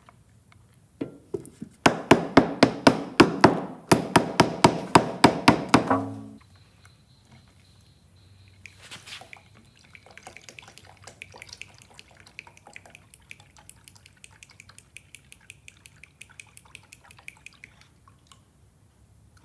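Epoxy hardener glugging as it is poured from a metal can into a plastic mixing cup: loud, rapid glugs about four a second for several seconds, then a quieter, thinner pour with small drips and ticks for the last ten seconds or so.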